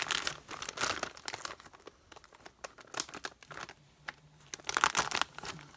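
A crinkly plastic chip bag rustling as it is opened and handled. It comes in bursts, with a dense stretch about the first second and a half and a louder burst of crinkling near the end.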